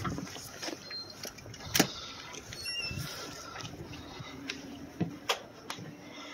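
People walking in through a door: scattered sharp clicks and knocks, the loudest about two seconds in, and a brief high squeak just after it.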